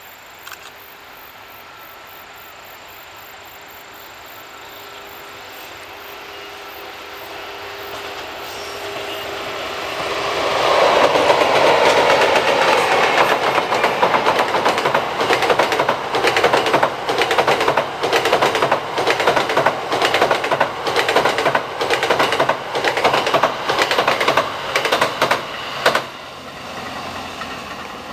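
A passenger train double-headed by EF64 and EF81 electric locomotives, hauling E26-series Cassiopeia coaches, approaches and crosses a steel girder railway bridge: a swelling rumble that peaks about ten seconds in as the locomotives pass, then a long run of rhythmic wheel clatter as the coaches roll over the rail joints, breaking off abruptly near the end.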